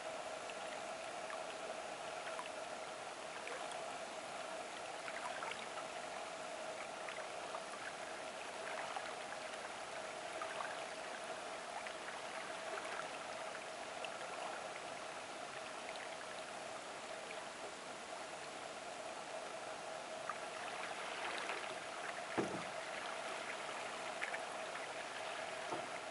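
Faint sounds of a solo canoe being paddled on calm water: small drips and splashes over a steady hiss and hum, with one sharper knock about twenty-two seconds in.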